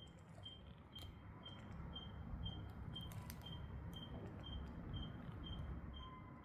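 Demolition machinery at work: a low, steady engine rumble with a high warning beeper sounding about twice a second, and scattered small clicks and knocks.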